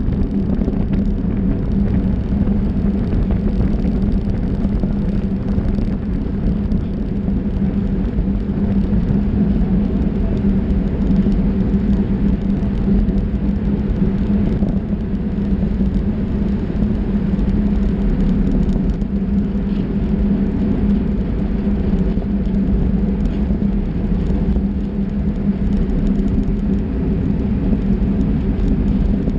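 Steady wind rush and road rumble on a bicycle-mounted camera riding in a pack of racing cyclists, with a steady low hum.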